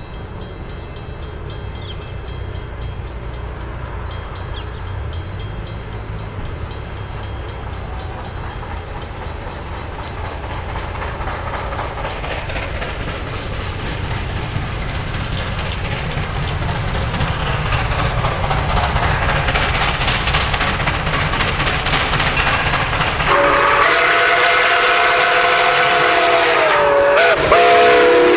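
Nickel Plate Road 765, a 2-8-4 Berkshire steam locomotive, approaching: its running noise grows steadily louder, then about 23 seconds in its steam whistle sounds a held chord that wavers in pitch near the end.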